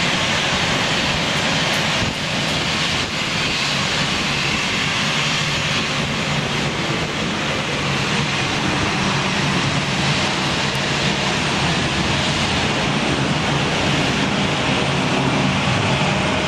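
Twin GE CF34-8E turbofans of an Embraer 170 at take-off thrust during its take-off roll: a loud, steady jet engine noise.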